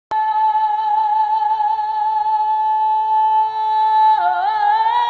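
Music: a single sustained note that starts abruptly, holds steady with slight vibrato, then dips and steps up to a slightly higher pitch about four seconds in.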